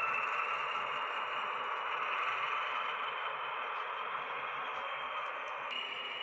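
H0-scale model SM42 diesel shunter running along the layout track: a steady whirring hiss from its motor and wheels, with a faint whine that rises slightly in pitch.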